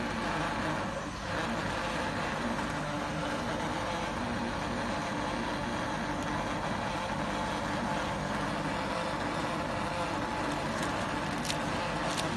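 Peanut flour milling machine running steadily: an even mechanical rush with a low motor hum underneath. A couple of faint ticks come near the end.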